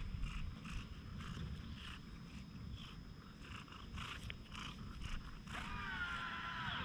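Stray cat purring with a low rumble while rubbing its face against a stroking hand, fur rustling against the skin. Near the end it gives one drawn-out meow that dips slightly in pitch.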